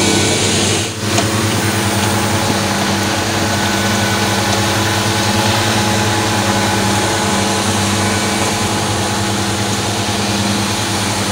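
Steady drone of an idling engine, holding an even pitch, with a brief drop in level about a second in.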